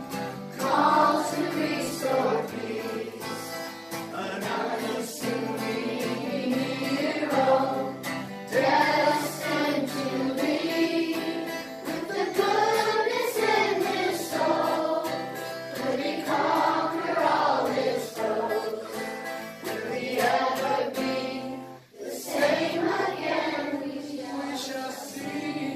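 A classroom of children singing a song in unison along with a man's voice, accompanied by a strummed acoustic guitar, with a brief pause between phrases near the end.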